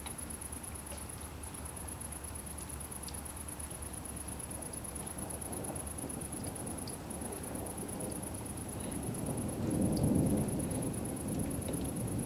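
Distant thunder rumbling, a low roll that builds from about halfway through and is loudest about two seconds before the end.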